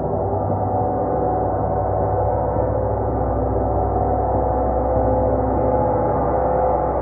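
A gong ringing in a continuous wash of many overlapping tones, with no separate strikes standing out, swelling slightly toward the end.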